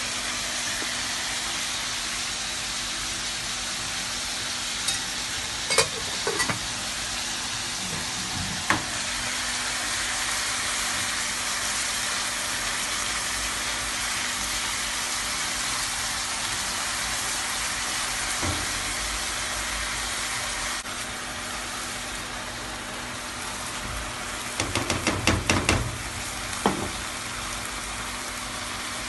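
Small pieces of chicken sizzling in a nonstick frying pan over high heat, a steady frying hiss. A few sharp knocks of the spatula against the pan, and a quick run of clatters near the end.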